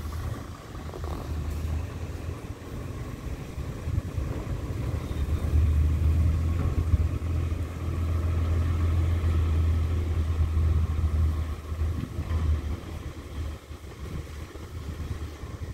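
Diesel passenger train running slowly, heard through the open carriage window: a low, steady rumble that swells for several seconds midway and then eases off.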